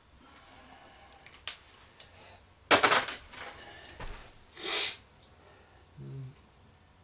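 Handling noise from cabinet and countertop work: two sharp clicks, then a loud clatter of knocks, a low thump, a brief swish and a short low sound near the end.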